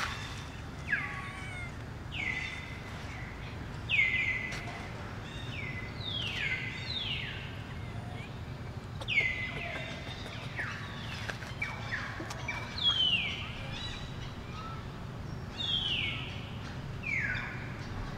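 A series of short, high animal calls, each sliding down in pitch, coming about every second or two with a couple of brief pauses, over a steady low background hum.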